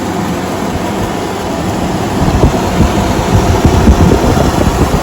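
McCoy 18-litre air cooler running with its fan on high, the air stream rushing steadily and buffeting the microphone with a gusty low rumble.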